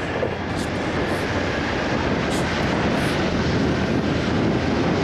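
Motorcycle running under way, a steady engine rumble mixed with rushing wind noise.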